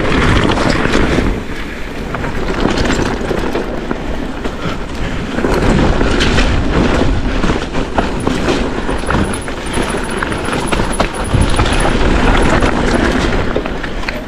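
Electric mountain bike riding fast down a loose shale trail: a steady rumble of tyres over stones with constant rattling and clattering from the bike.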